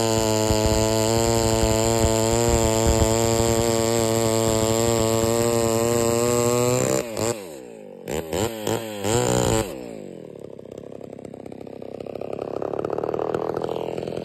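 Homelite Super XL two-stroke chainsaw running at full throttle while cutting through a cherry log for about seven seconds. The engine then drops back, is blipped several times in short revs, and cuts out just before ten seconds in.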